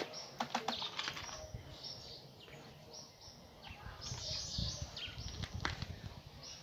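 Hand work on a bicycle's front brake: several sharp metallic clicks in the first second, then lighter scattered rattling and handling noise as the brake is adjusted.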